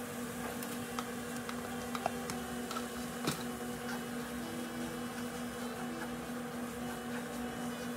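A wooden spoon scraping and knocking in a cast iron skillet as cooked rice is stirred into simmering tomato sauce: scattered soft ticks and scrapes, the sharpest knock about three seconds in, over a steady low hum.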